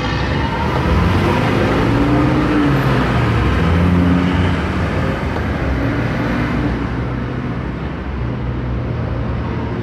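Car engine and road noise heard from inside a moving car in city traffic. It swells for the first few seconds, with the engine note shifting, then eases off a little.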